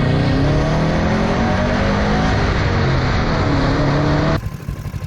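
Vehicle engine revving, its pitch rising and falling, cutting off abruptly about four seconds in, followed by lower, uneven engine running.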